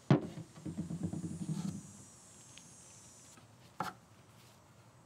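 Workshop handling noise: a sharp knock, then about two seconds of low rustling and rubbing, and a single click a little before the end.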